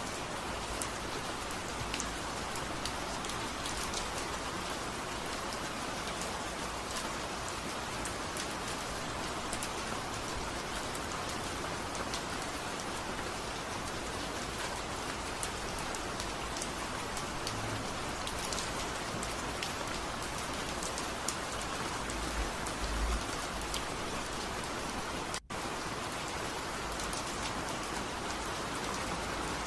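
Steady rain, an even hiss with scattered faint drop ticks; it cuts out for an instant about 25 seconds in.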